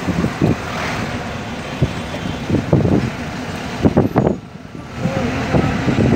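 A road vehicle driving, with steady engine and road noise and several short louder spikes; the noise drops briefly about four and a half seconds in.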